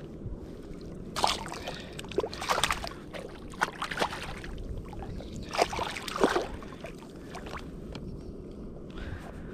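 A speckled trout on a rope stringer being handled and let into the water beside the boat: a handful of short splashes and handling rattles over the first six seconds or so. Under them, a steady low rush of water and wind.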